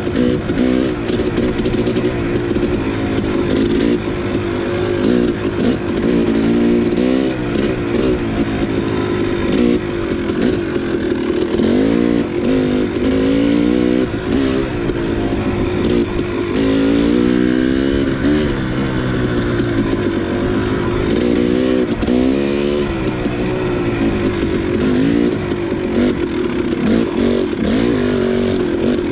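KTM 300 XC two-stroke dirt bike engine running under load, its revs rising and falling again and again as the throttle is worked.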